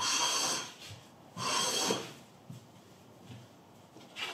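Wooden hand plane taking two shaving strokes across a wooden slab, each a hiss of about half a second, the second about a second and a half after the first.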